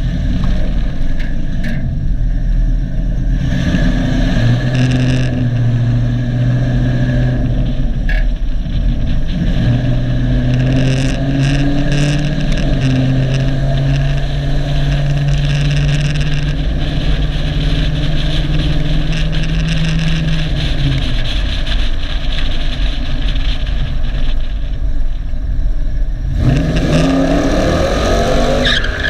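Cammed 5.3-litre V8 of a GMC Sierra pickup pulling the truck along the road. The engine picks up a few seconds in and holds a fairly steady pitch through the middle, then falls away. Near the end it revs hard with a rising pitch.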